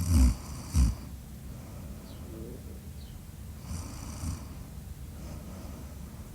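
Snoring: two loud snores close together right at the start, then a quieter snore about four seconds in.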